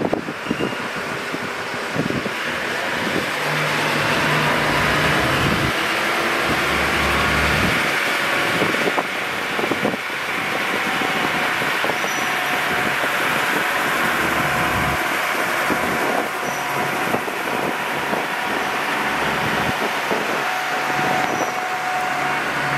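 KiHa 40 diesel railcar train pulling away from a station, its diesel engines working under power as it gathers speed. Wheels clack over rail joints, mostly in the first few seconds, over a steady rolling hiss from the train.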